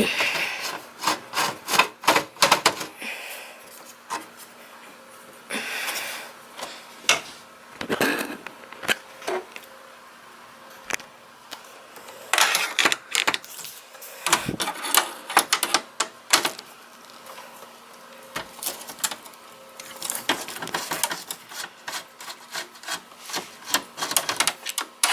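Screwdriver backing out the motherboard screws of a desktop computer: a scatter of sharp metal clicks and ticks with short scraping rasps, in irregular bursts with pauses between them.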